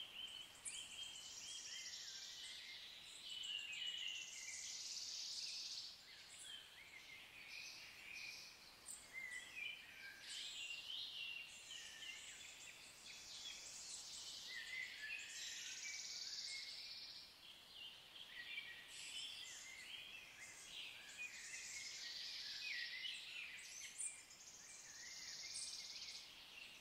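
Woodland songbirds singing: high twittering, warbling phrases a few seconds long, one after another with short pauses.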